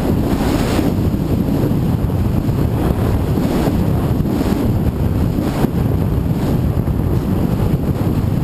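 Loud, steady wind buffeting the microphone of a GoPro mounted on a Radian model glider in flight, a low rushing rumble with no clear motor tone.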